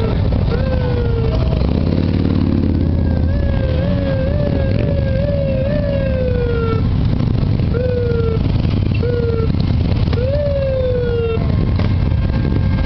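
Motorcycles riding past at low speed, engines rumbling, while a siren gives repeated short whoops, each jumping up in pitch and sliding down, some in quick runs of three or four.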